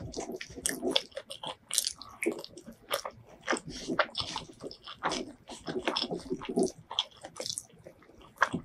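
Close-miked chewing and wet mouth sounds of someone eating curry-soaked rice and chicken by hand, a quick irregular run of small clicks and crackles.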